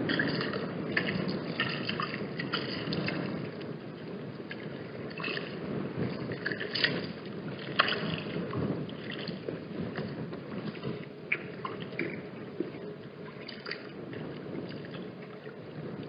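Wind buffeting the microphone in a steady low rumble, with many short, high-pitched sounds scattered throughout.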